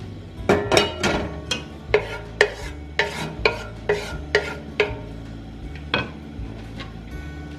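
A run of sharp kitchen knocks, about two a second, each with a short ring, stopping about six seconds in.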